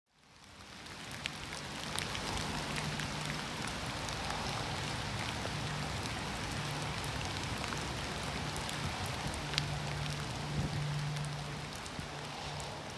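Steady rain-like hiss with scattered pattering drops. It fades in over the first second or two, and a faint low hum comes and goes beneath it.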